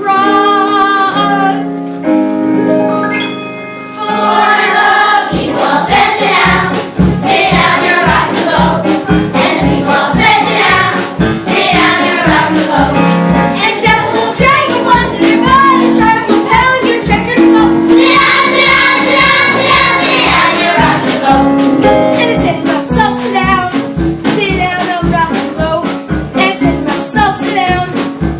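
A group of children singing a show tune with instrumental accompaniment. Held chords open it, then a steady beat comes in about five seconds in and runs under the singing.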